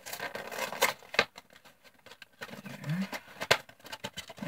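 Cardboard card-game box being handled and opened by hand: scattered scrapes, taps and rustles of card, with one sharper click about three and a half seconds in.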